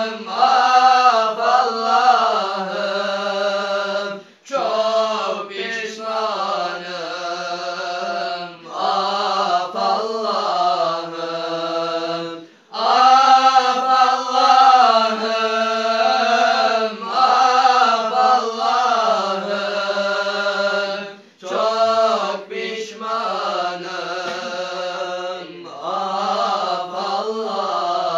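Young men's voices chanting an unaccompanied Islamic hymn together, in long, ornamented sung phrases with short breaks for breath about every eight seconds.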